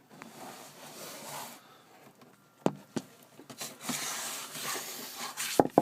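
Packaging being handled and opened: rustling, with a few sharp knocks, the loudest one near the end.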